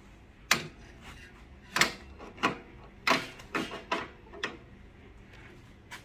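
A series of sharp, irregular metal clacks and knocks from a portafilter being pushed up into the group head of a Milesto Elaine M3 espresso machine and twisted to lock it in.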